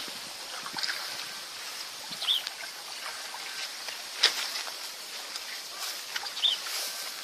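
Water trickling and splashing in a shallow ditch, with scattered sharp clicks, the loudest about four seconds in.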